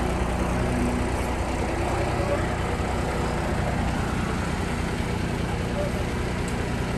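Diesel engines running steadily: a dump truck idling close by, with a mini excavator working behind it.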